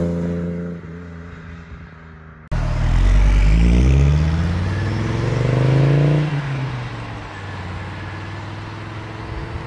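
A 1983 Audi Quattro's five-cylinder turbo engine accelerating hard away, its pitch climbing twice as it pulls through the gears. It then drops back and fades as the car draws off into the distance.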